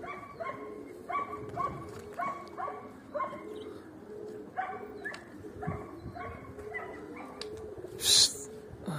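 Domestic pigeons cooing: a low warbling coo runs under short calls that repeat about twice a second. About eight seconds in there is a brief loud rushing noise.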